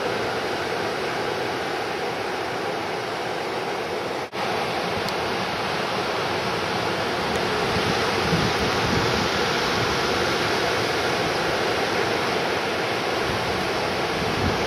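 Steady rush of breaking surf and ocean waves, with the sound dropping out for an instant about four seconds in.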